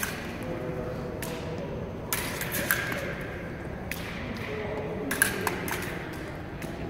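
Fencing blades clashing and scraping in a series of sharp metallic clicks and pings, a few seconds apart, with thuds of footwork on a wooden floor.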